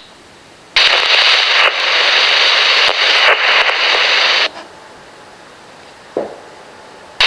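RadioShack Pro-97 police scanner's speaker hissing with radio static: a loud burst of about four seconds as a transmission opens without voice, then a lower hiss with a short chirp near the end, and the loud static opening again at the very end.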